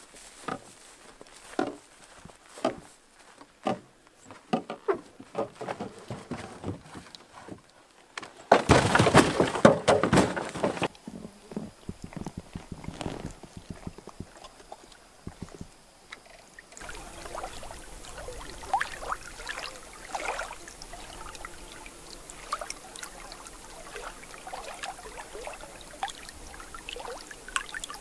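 Water splashing and pouring, loudest for about two seconds near ten seconds in, among scattered knocks and clicks; after about seventeen seconds a steady rush of water with light knocks.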